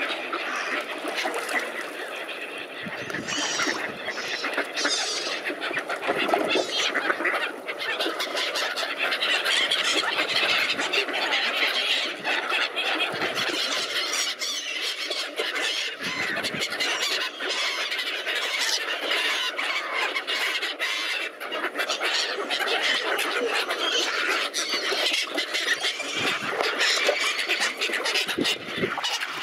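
A mixed flock of gulls and ducks calling over one another in a dense, continuous din of squealing gull cries and quacks, the birds crowding close at a feeding.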